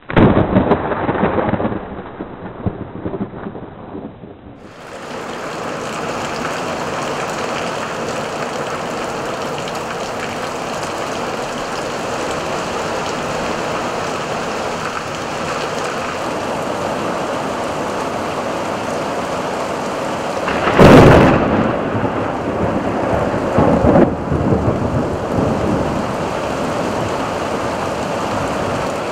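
Torrential thunderstorm rain pouring steadily. A sharp, loud thunder crack comes about two-thirds of the way in and rumbles on, with a smaller clap a few seconds later. The first few seconds are a duller crash that fades away.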